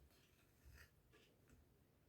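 Near silence: room tone with a few faint soft ticks.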